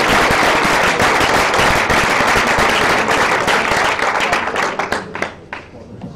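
Audience applause, many hands clapping together, that dies away about five seconds in with a few last claps.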